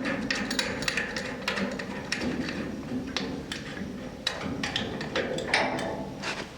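Ratchet wrench clicking in a quick, uneven series of strokes as a brake caliper mounting bolt is run in.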